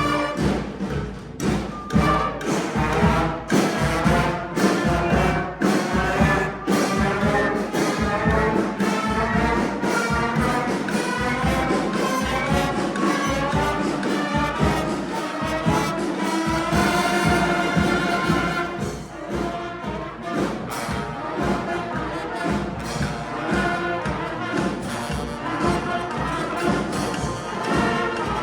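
Street brass band playing: horns and trombones carry the tune over steady, driving drum beats.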